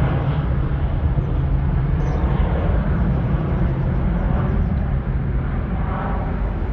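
Twin-engine jet airliner climbing out just after takeoff, its engines making a loud, steady roar with a low drone.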